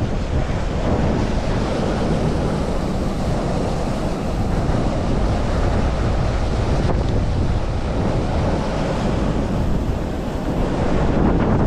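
Water pouring steadily over a spillway, with wind buffeting the microphone.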